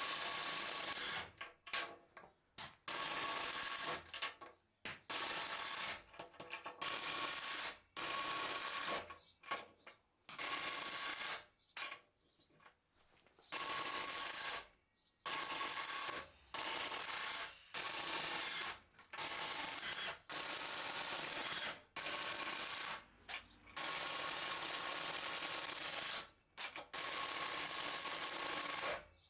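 Kimo 20-volt cordless impact driver hammering screws into wood, running in bursts of one to two seconds with short breaks between them, and a longer pause about halfway through.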